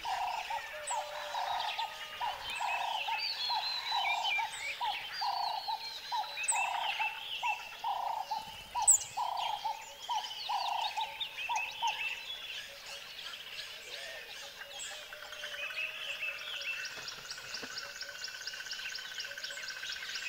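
Forest birds chirping and whistling, with one bird repeating a lower call about twice a second for the first twelve seconds. There is a single sharp click about nine seconds in.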